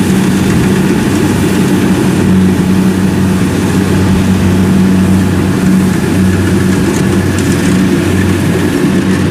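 Kubota DC70 rice combine harvester running steadily while cutting, its diesel engine and threshing machinery making a constant drone that holds at one pitch.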